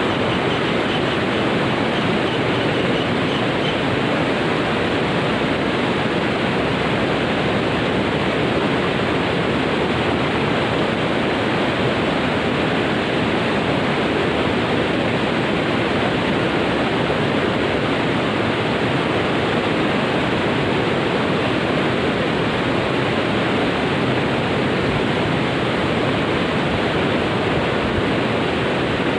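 Steady rushing of water, an even, unbroken noise.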